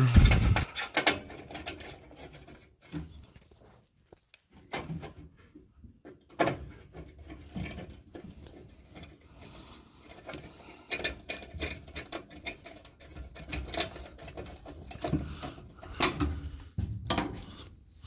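Hands working on sheet metal and wiring inside a gas furnace: irregular clicks, taps and scrapes as the freshly cleaned flame sensor is refitted at the burners.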